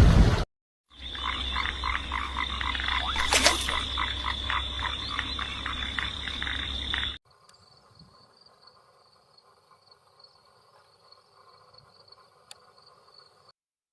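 Animal calls repeating in a rapid rhythmic series, about four pulses a second, over a steady high-pitched tone and a low hum. They stop abruptly about seven seconds in, leaving only a faint steady background.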